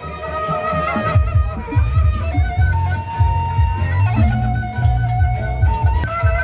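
Loud traditional Sasak procession music: a wavering, ornamented melody over heavy, pulsing drumbeats, with cymbal clashes on the beat.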